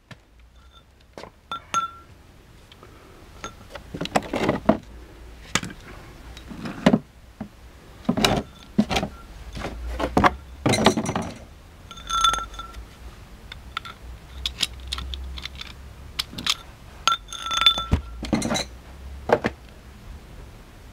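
Irregular metal clinks and knocks, about a dozen, some ringing briefly, as an Emerson hydraulic jack and its pump handle are handled, lifted out of a plastic carrying case and set down.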